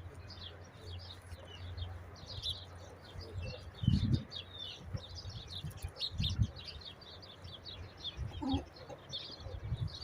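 Small birds chirping steadily, with many short high calls. A few dull low knocks come about four, six and eight and a half seconds in.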